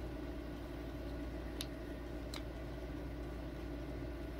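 Steady low background hum, with two faint light clicks about a second and a half and just over two seconds in: a small folding Allen key working a tiny hex screw in a plastic rifle stock.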